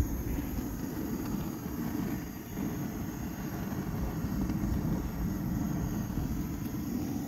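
Steady low rumble of wind buffeting the phone's microphone, with a faint high steady whine above it.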